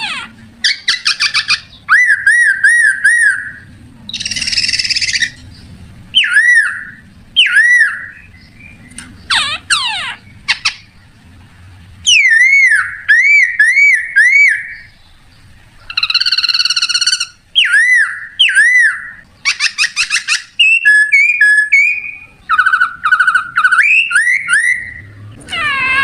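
Leaf whistle blown between the lips, imitating bird calls: a run of short, high whistled phrases of fast trills, repeated arching chirps and quick sweeping notes, separated by brief pauses.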